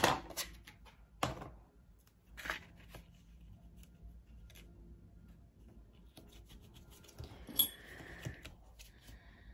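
Scissors snipping a small piece of double-sided tape, then quiet fiddling with the tape and paper, with a few separate sharp clicks.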